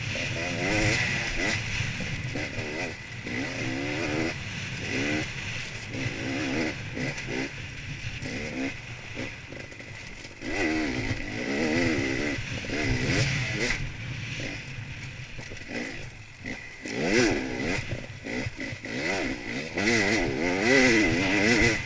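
Enduro motorcycle engine heard from on the bike, revving up and down in repeated quick surges with short drops between them as the throttle is worked over rough dirt.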